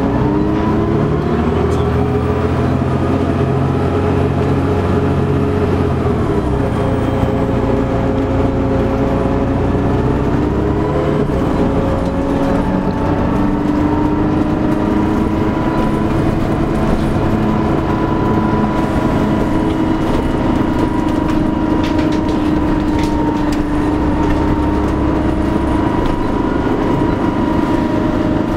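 Dennis Trident double-decker bus engine and drivetrain heard from the upper deck while the bus is under way. The engine note changes twice, about six and eleven seconds in, then settles into a steady tone that slowly rises in pitch.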